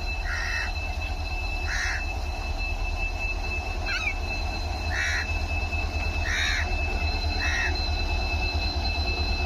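Indian Railways WDG diesel locomotive rumbling low and steady, slowly growing louder as it approaches. Over it, a steady high whine and short chirps every second or so.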